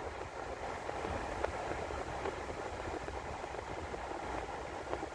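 Steady road noise of a moving car: tyres on pavement and wind, with a low rumble underneath.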